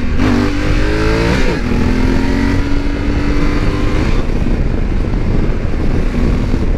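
Motorcycle engine with a full-bodied exhaust rumble. It revs up, rising in pitch for about a second and a half, drops suddenly as it shifts, then holds a steady note that fades somewhat after about four seconds.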